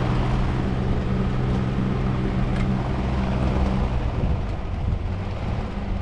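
An engine running at a steady speed, a low even hum, which eases off or changes about four seconds in.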